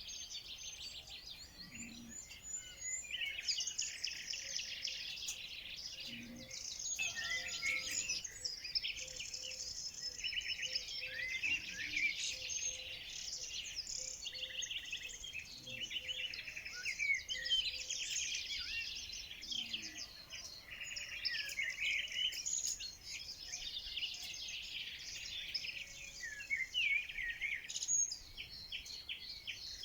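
A chorus of many small songbirds chirping and trilling at once, thick and unbroken, with quick high notes overlapping throughout.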